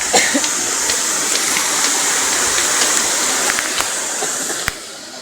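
Waterfall: falling water rushing in a loud, steady hiss that drops away sharply near the end.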